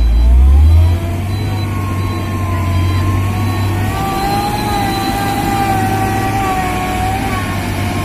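Heavy diesel engines of a tanker truck stuck in mud and the excavator pushing it, working under load. The low engine drone is loudest for about the first second and then settles to a steady level, with a wavering whine running above it.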